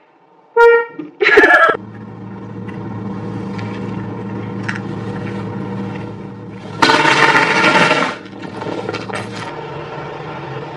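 A car horn honks briefly, heard from inside the car, followed by a second, louder short burst. After that comes a steady low hum, with one loud rush of noise lasting about a second past the middle.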